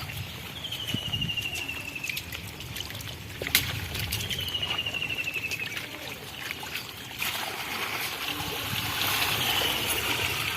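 Floodwater running and trickling, growing louder and more rushing about seven seconds in. A high, slightly falling trill sounds twice over it, and there is one sharp click.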